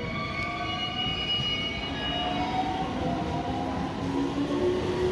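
Electric train moving through the station: the motor inverter whines in several tones that slowly rise in pitch, over steady rumbling running noise.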